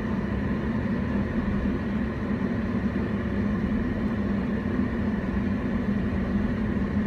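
Steady hum of a car's engine and cabin noise, heard from inside the car as it moves slowly.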